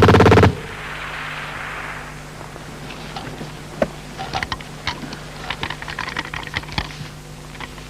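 A burst of GPMG machine-gun fire, a fast even rattle, cuts off about half a second in. After it come a steady low hum and a scatter of light, irregular clicks and rattles.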